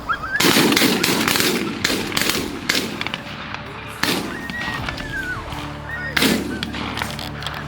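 A volley of shotgun blasts, loudest in a dense cluster about half a second in, with single shots following at about 2, 4 and 6 seconds. Canada geese honk between the shots, with background music underneath.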